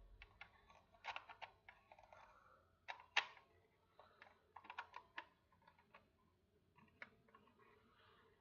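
Faint, irregular clicking of a screwdriver turning and seating a wire terminal screw on a fire alarm pull station, a few sharper clicks about a second in and around three seconds in.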